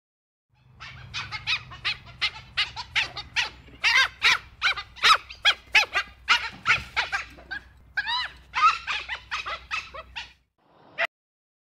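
Dhole (Asiatic wild dog) calling: a rapid string of short, high-pitched yelping whistles, about three or four a second, that starts about a second in and stops near the end, with one last call after a brief pause.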